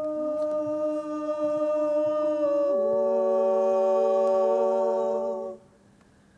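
Women's barbershop quartet singing a cappella, holding sustained wordless chords that sound hummed. About three seconds in, the voices move to a fuller chord with a lower bass note. The chord is held, then cut off together about five and a half seconds in.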